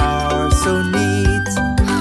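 Children's cartoon music: a tune of held notes over a changing bass line.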